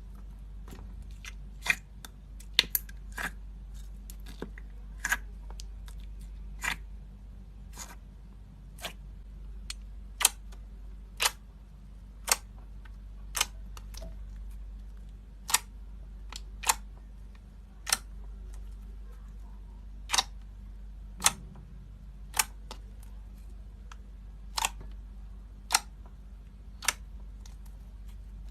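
Slime being squeezed and pressed, giving sharp air-bubble pops and clicks about once a second at uneven intervals, over a steady low hum.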